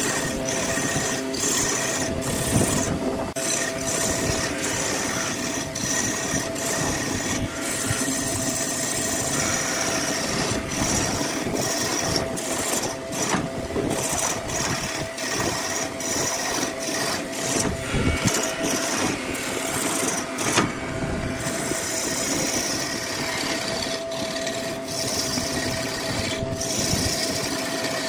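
Wood lathe running with a steady motor hum while a hand-held turning tool cuts the spinning wooden blank, a continuous rough scraping that wavers as the tool moves along the piece.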